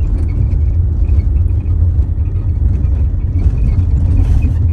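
Steady low rumble inside a Honda car's cabin as it drives slowly along a dirt road: engine running and tyres rolling on the unpaved surface.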